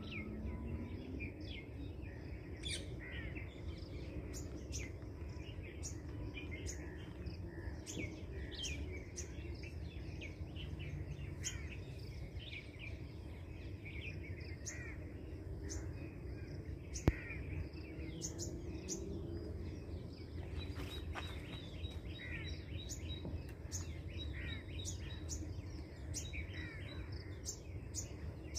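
Several birds calling, with many short, high chirps and calls throughout, over a steady low rumble. One sharp click about 17 seconds in.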